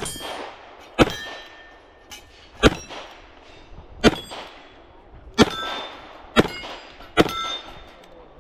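A string of shots from a Smith & Wesson 686 double-action revolver, about seven sharp reports roughly a second apart. Steel plates ring after several of them as they are hit.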